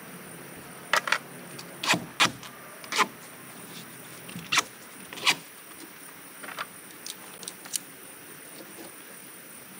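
Irregular sharp clicks and knocks, about a dozen of them, loudest in the first five seconds and fainter after, over a steady low hiss.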